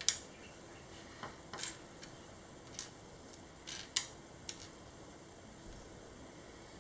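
Small plastic Lego pieces being handled, giving about seven sharp, scattered clicks and taps at irregular intervals, with the loudest near the start and about four seconds in.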